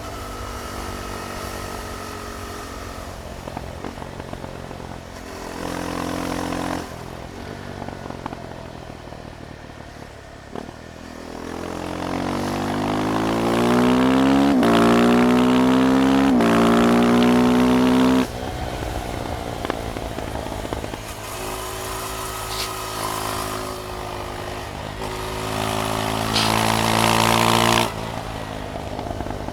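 KTM Duke 390's single-cylinder engine under way, running at part throttle, then pulling hard about halfway through with its pitch climbing and stepping. The throttle snaps shut and it drops back abruptly, and near the end there is a second loud pull that cuts off just as sharply.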